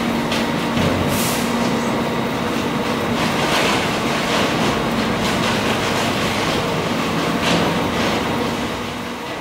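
Rear-loading garbage truck running with a steady mechanical hum from its engine and compactor. Several loud crunching crashes come as bulky furniture is thrown into the rear hopper and crushed.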